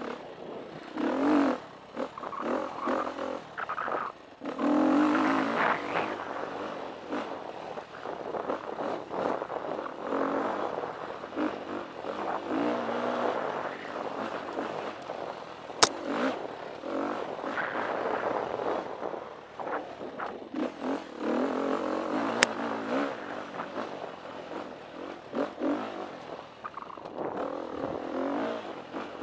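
2013 KTM 350 EXC dirt bike's four-stroke single-cylinder engine revving up and down under changing throttle as it rides over rough dirt trail, with the clatter of the bike over the ground. Two sharp knocks stand out, about halfway through and again about two-thirds through.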